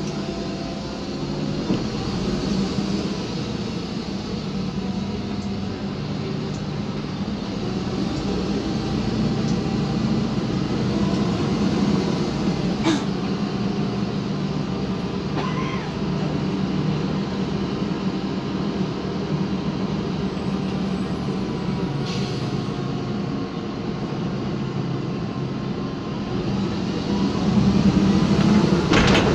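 Cabin sound of a MAN Lion's Classic city bus on the move: its MAN E2876 six-cylinder CNG engine running steadily with a low drone, with a couple of sharp knocks from the bus body and suspension. Near the end the engine pulls harder and gets louder, rising in pitch.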